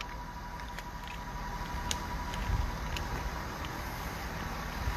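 Outdoor background: a low steady rumble with a few faint clicks and a faint steady high tone.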